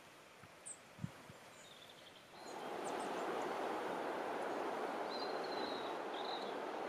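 Outdoor ambience with a few high bird chirps and a soft thump about a second in. About two and a half seconds in, a loud steady rushing noise sets in suddenly, with more bird calls over it.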